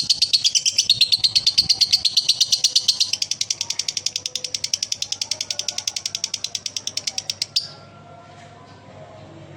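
Male lovebird's long ngekek: a continuous rattling trill of rapid, harsh, high chirps, roughly eight to ten a second. The notes come closer together about three seconds in and cut off abruptly about two seconds before the end.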